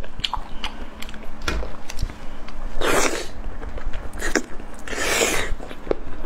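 Close-miked eating sounds: wet chewing and lip smacks with many small clicks, and two short airy bursts about three and five seconds in.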